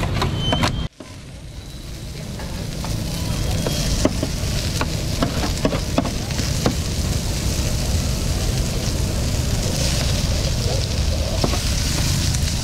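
Noodles and leafy greens sizzling on a flat steel griddle as they are stir-fried, with a metal spatula scraping and clicking against the steel. A low steady rumble runs underneath, and the sound drops out briefly about a second in before building back up.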